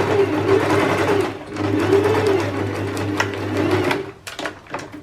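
Electric sewing machine running a straight stitch, its speed easing off briefly about a second and a half in, then stopping about four seconds in, followed by a few light clicks.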